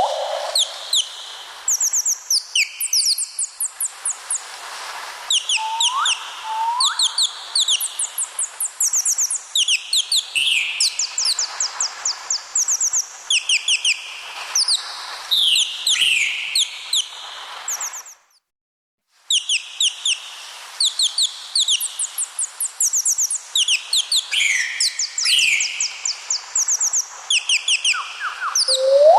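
A parrot chirping and calling: quick runs of high, sharp chirps mixed with short rising whistles, broken by about a second of silence roughly two-thirds of the way through.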